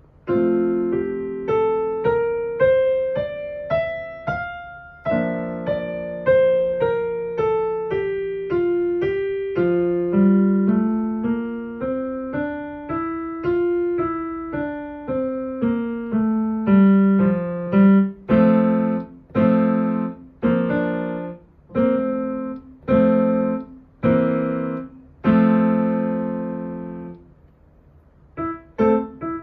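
Piano playing a short practice piece: a melody climbs and then falls over low accompanying notes, then turns to firmly struck chords about one a second, stops briefly near the end and starts again.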